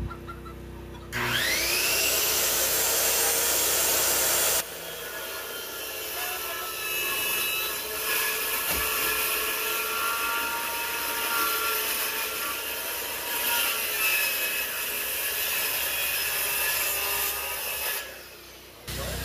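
Circular saw spinning up with a rising whine about a second in and plunge-cutting into plywood wall sheathing. It then keeps cutting steadily through the plywood and stops shortly before the end.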